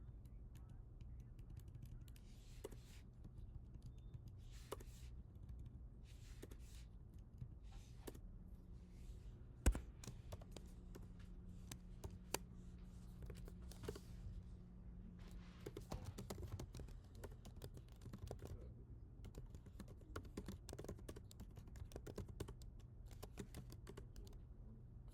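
Typing on a computer keyboard in uneven runs of keystrokes, with one louder knock about ten seconds in, over a faint steady low hum.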